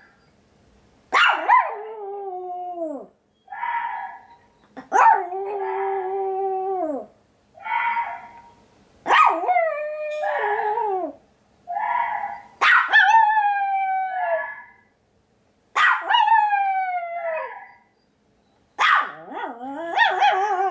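White Pomeranian howling about six times, each howl starting sharply and sliding down in pitch over a couple of seconds. Between the howls come short, hoarse calls from a recording of a water deer, which the dog answers.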